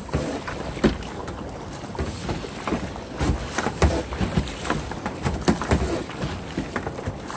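Water sloshing and slapping against a kayak in ocean swell, with wind buffeting the microphone and irregular knocks and low thumps throughout.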